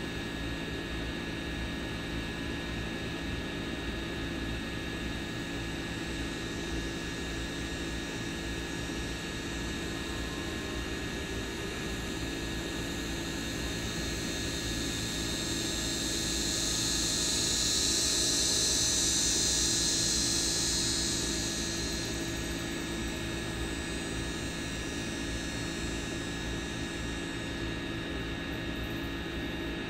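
A steady mechanical drone, an even hiss with a constant hum under it. The hiss swells for a few seconds about halfway through, then settles back.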